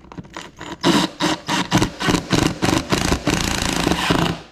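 Power drill running in quick pulses, about four a second, then steadily for about a second before it cuts off suddenly.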